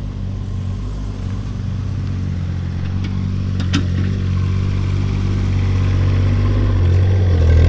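Engine running steadily at low speed, growing a little louder toward the end, with a couple of light clicks about three to four seconds in.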